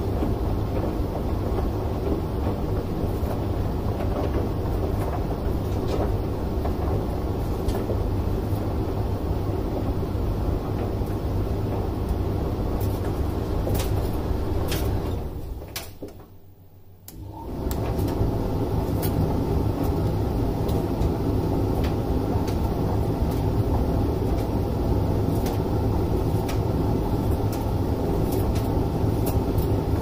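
Front-loading washing machine running: a steady rumble from the drum and motor, with scattered light clicks. About halfway through it dies away to near silence for a second or so and then starts up again, as the drum stops and restarts.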